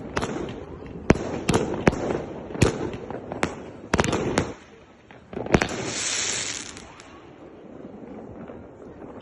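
Compound 64-shot fireworks cake firing: about eight sharp reports in quick succession, a short pause about four and a half seconds in, then one more report followed by a hissing rush lasting about a second.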